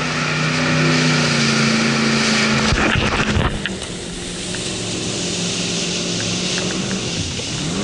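Jet boat engine running hard with rushing water and spray around the hull. The engine note eases back about three and a half seconds in and starts to climb again near the end.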